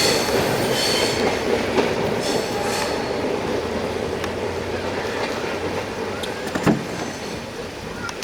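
Benapole Express passenger train running past, its wheels rumbling and clattering on the rails with a high squeal over the first few seconds, the noise slowly fading. A single sharp knock about two-thirds of the way through.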